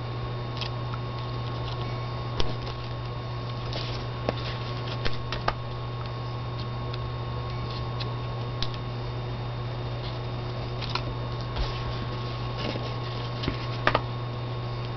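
Small scattered clicks and taps of paper and card being handled as adhesive foam dots are stuck on to pop up an embellishment, over a steady low hum.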